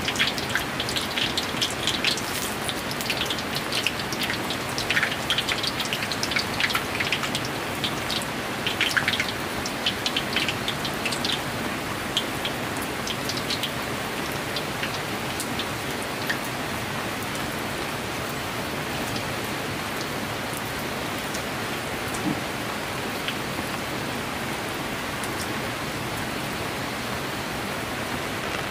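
Rain falling steadily, a continuous hiss with many sharp drops striking close by during the first dozen seconds, then evening out.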